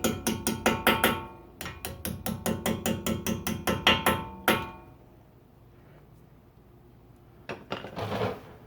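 Small hammer tapping the brake pad retaining pins back into a front brake caliper: rapid ringing metal-on-metal taps, about four a second, in two runs with a short break. The runs stop about halfway through, and a few more knocks come near the end.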